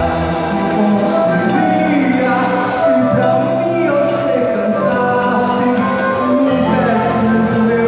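Music with singing: a sung melody over steady instrumental accompaniment.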